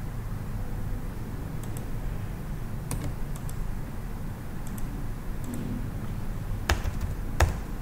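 A few scattered clicks of a computer mouse and keyboard, with two sharper clicks near the end, over a steady low hum.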